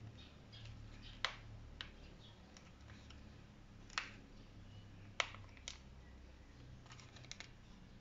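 Scattered sharp plastic clicks and snaps, the first about a second in and a quick cluster near the end: a car side-mirror's plastic part being pried off its small clips little by little.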